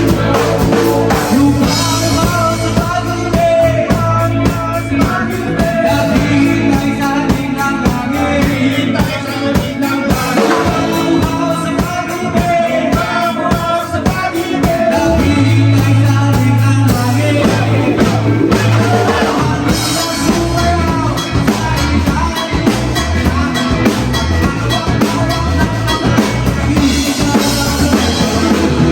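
Live band playing a rock song, with a full drum kit keeping a steady beat under bass, other instruments and singing.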